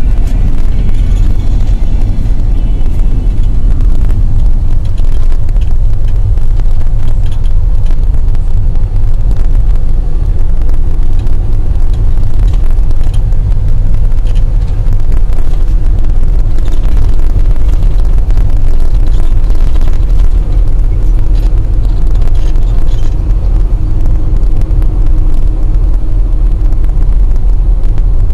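Steady low rumble of a moving road vehicle, engine and tyre noise heard from inside the cabin while driving at road speed.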